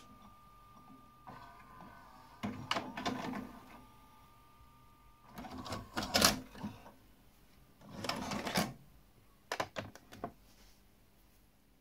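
VHS deck mechanism of an LG DVC5930 DVD/VHS combo whirring and clunking through an eject cycle. Three bursts of mechanical clatter come from the tape mechanism and the cassette flap, followed by a few sharp clicks near the end.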